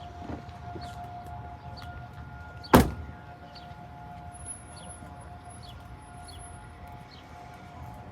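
A nearby Modulator II 3012B electronic outdoor warning siren sounding a steady tone during a test. A single sharp knock cuts in loudly about three seconds in.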